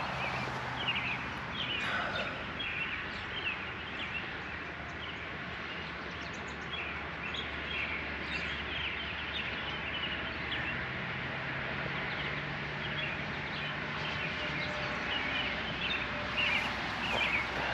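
Outdoor ambience with many small birds chirping throughout, over a steady low hum.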